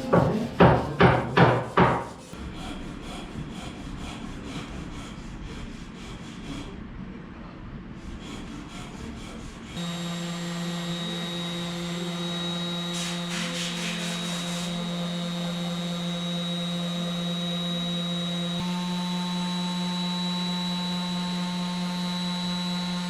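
A tool working wood: four or five quick, loud rubbing strokes at the start, then fainter rubbing. About ten seconds in, a power tool's motor starts and runs with a steady hum to the end, its tone changing slightly in the last few seconds.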